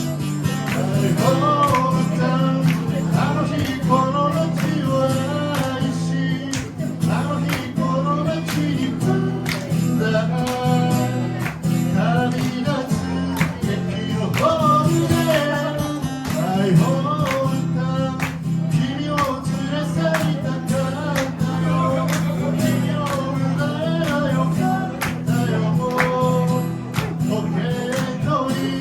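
A person singing a song while strumming an acoustic guitar.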